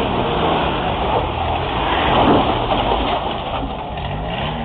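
Engine of a 1989 Toyota 4x4 pickup revving up and down as the truck crawls past over mud and rock, under a rough, steady rush of noise.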